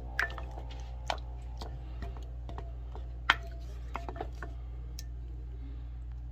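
Wooden spoon stirring a thick cheese soup in a ceramic bowl, with scattered clicks and knocks of the spoon against the bowl, the loudest about three seconds in.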